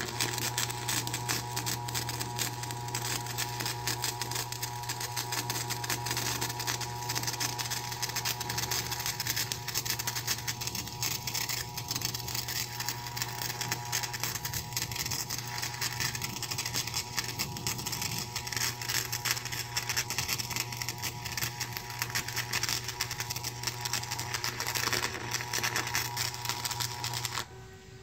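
Stick welding arc crackling steadily with a low hum as a bead is run along the bottom of a steel sway-control hitch tab, stopping abruptly near the end when the arc is broken.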